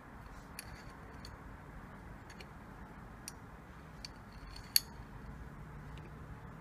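Small sharp metallic clicks and taps from a metal circuit-board holder as a phone motherboard is seated in it and its spring-loaded clamp is slid into place. There are about six clicks, with one much louder than the rest about five seconds in, over a faint steady hiss.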